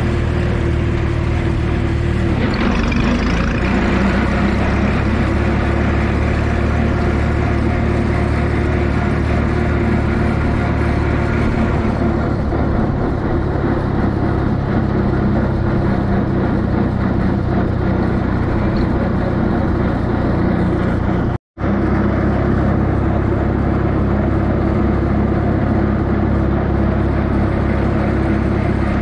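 Minneapolis-Moline tractor engine running on propane, heard from the tractor itself: it revs up about two and a half seconds in as the tractor pulls onto the road, then holds a steady pace as it drives along. The sound cuts out for a split second about twenty-one seconds in.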